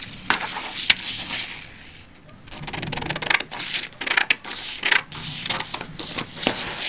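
Paper handled and rustling, then from about two and a half seconds in, large scissors cutting through stiff pattern paper in a quick run of snips.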